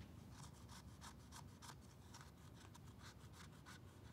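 Metal scraper blade scraping the acetone-treated finish film on Epi leather in short, quick strokes, several a second: a faint scratching as the heavy corrective finish is worked off the grain.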